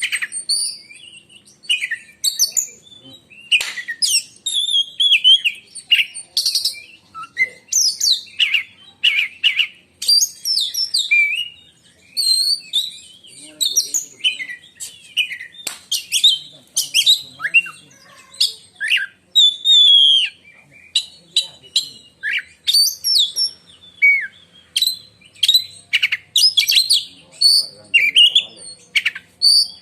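Oriental magpie-robin (kacer) singing a shrill, varied song of quick whistled and harsh notes, phrase after phrase with hardly a pause.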